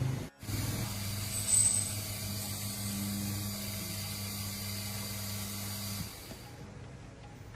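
A small electric motor running with a steady low hum that stops about six seconds in, with a brief high-pitched squeal about a second and a half in.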